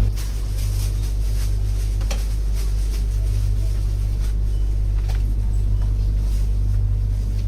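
Supermarket ambience: a steady low hum underneath, with a few scattered light clicks and knocks.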